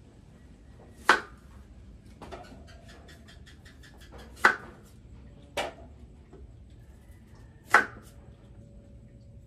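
Kitchen knife slicing an apple and knocking on a wooden chopping board: four sharp knocks, one about a second in, two near the middle and one near the end, with a run of faint quick ticks between the first two.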